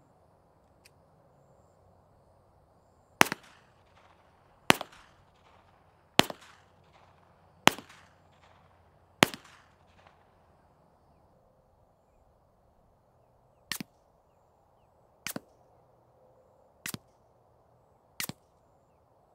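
Five unsuppressed 9mm shots from a Beretta 92FS Inox pistol, heard from about 50 yards, about a second and a half apart, each with a trailing echo. Then four much quieter shots at the same pace, the pistol suppressed with a CGS Group Kraken 9 and firing Freedom Munitions 147-grain Hush subsonic rounds, each a short crack with almost no echo.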